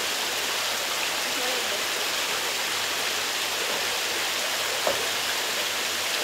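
Steady rush of running water from a small stream flowing through a garden pond.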